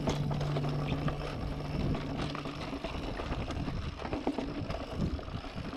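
Mountain bike riding over a rough dirt trail: tyre noise on the dirt with frequent clicks and rattles from the bike.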